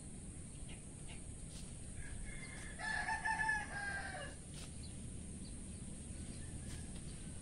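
A rooster crows once, a single drawn-out call of about two seconds a little over two seconds in, dropping in pitch at its end.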